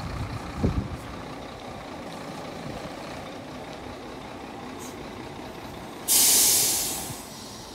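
Sinotruk Howo tractor truck's diesel engine idling steadily, with a low thump under a second in. About six seconds in, a sudden loud hiss of compressed air venting from the air brake system, fading away over about a second.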